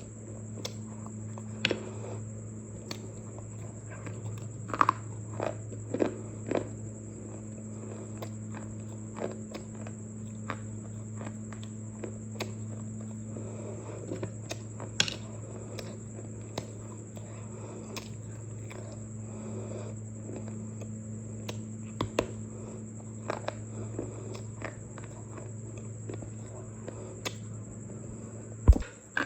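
Someone biting and chewing something crunchy: scattered crisp crunches at irregular intervals over a steady low hum.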